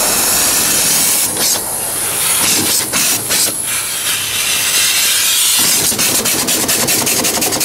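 Small steam engine with its two cylinder drain cocks open, blowing steam and condensed water out of the cylinder in a steady hiss to clear the water before running. About six seconds in the hiss breaks into quick, regular puffs.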